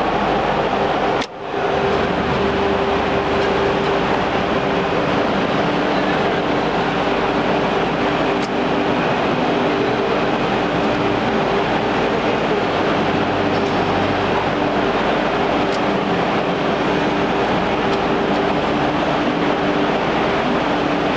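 Industrial blade-grinding machine running: a steady, loud mechanical noise with a low hum. It briefly drops out about a second in.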